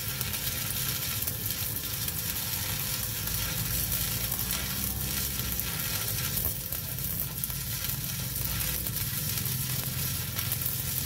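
Stick (MMA) welding arc burning a 2.6 mm electrode at about 140 amps on 10 mm steel plate, fed by an Aco BZ3-200 IGBT inverter welder. It makes a steady, unbroken crackling sizzle, and the arc runs smoothly.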